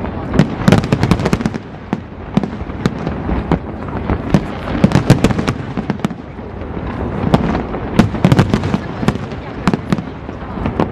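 Aerial firework shells bursting in rapid volleys: many bangs and crackles overlapping in waves, with the densest clusters about a second in, around five seconds and around eight seconds.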